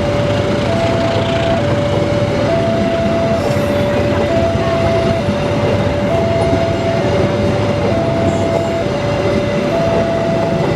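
Railway level-crossing warning siren sounding a two-note alternating tone, switching between a higher and a lower pitch about once a second, over the steady noise of a train passing the crossing.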